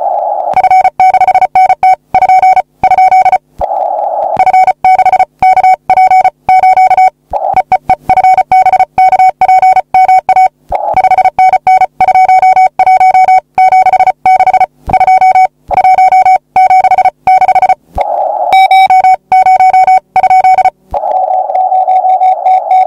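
Morse code sidetone: a single steady mid-pitched tone keyed on and off into fast dots and dashes by a 3D-printed CW paddle, with a hiss in the gaps. About two seconds before the end the keying stops and a steady hiss carries on.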